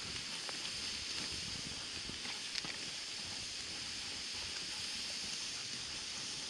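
Dog sled gliding over a snowy trail behind a running husky team: a steady hiss of the runners on snow, with rough crackling underneath and a few light clicks.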